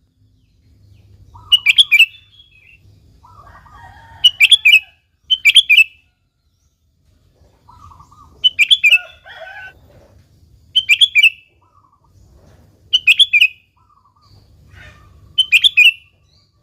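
Sooty-headed bulbul (kutilang) singing: short, loud, bubbling whistled phrases about every two seconds, seven in all, with softer, lower chattering notes in between.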